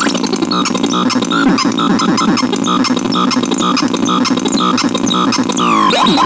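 Synthesizer playing a pitched electronic blip that repeats about twice a second over a dense, buzzy, fast-wobbling lower layer, with a falling pitch sweep near the end.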